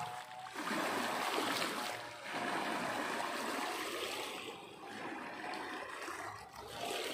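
Small sea waves washing up a shore of small pebbles and stones, surging and drawing back in swells of about two seconds, strongest in the first half.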